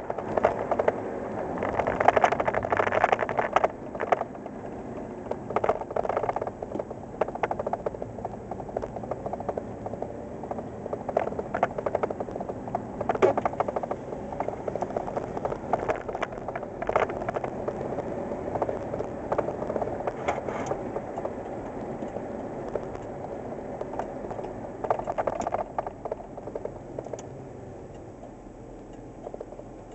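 In-cab sound of a 1987 Ford Ranger pickup with its 2.9 L Cologne V6 driving on the highway: steady engine and road noise with frequent short rattles and knocks from the cab. It gets quieter near the end as the truck slows.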